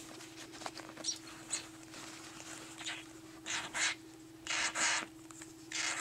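Unfeathered baby cockatiel chick giving short, raspy, hissing begging calls, three of them in the second half, each louder than the last, over a faint steady hum.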